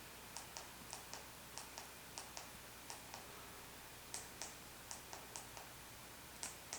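Quiet, sharp clicks in quick pairs, about nine pairs in all at an uneven pace, like keys or buttons being pressed and released, over a faint steady electrical hum.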